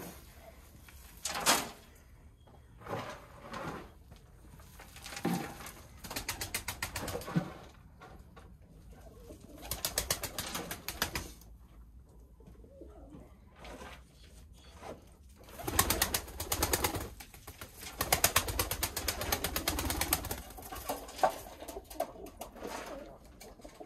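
Pigeons cooing, with several bursts of rapid rustling noise, the longest and loudest from about two-thirds of the way through.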